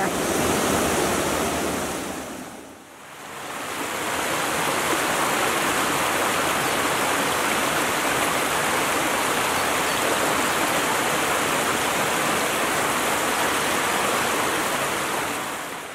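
A rocky woodland brook rushing over small cascades in a steady wash of water sound. It dips away briefly about three seconds in, comes back, and fades out near the end.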